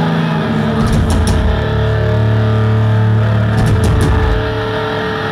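Live rock band playing loud: heavily distorted electric guitar and bass holding low sustained notes, with cymbal crashes about a second in and again near the end.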